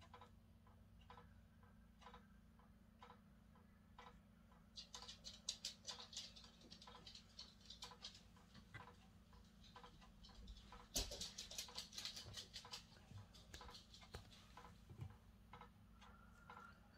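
Clock ticking steadily, about two ticks a second. Bursts of rustling and light clatter from objects being handled come in about five seconds in and again, loudest, about eleven seconds in.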